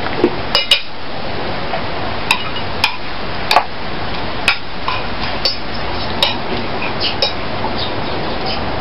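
Fork and spoon clinking against a ceramic plate of rice: short, light clinks at irregular intervals, roughly one a second, over a steady background hiss.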